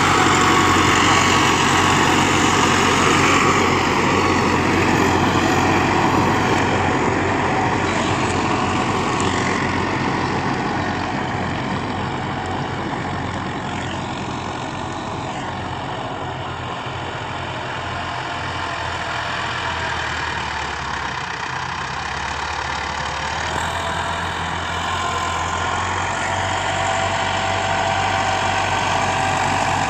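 Massey Ferguson 385 tractor's diesel engine running steadily under load while pulling a rotary tiller through the soil. It grows quieter through the middle as the tractor moves away and louder again near the end as it comes back past.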